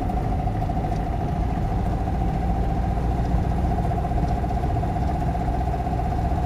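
1989 Talbot Express 2-litre petrol engine running under light throttle while driving, with a metallic, hollow knocking from the engine that is worst at gentle acceleration. A steady high whine runs through the engine noise.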